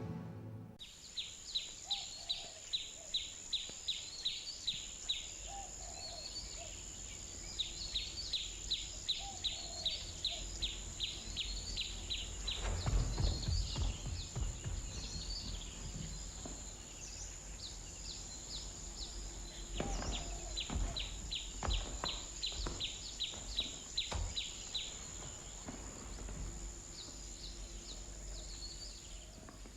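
Nature ambience with a steady high insect drone and runs of short chirps, about two to three a second. Low rumbles swell around the middle and again about two-thirds of the way through.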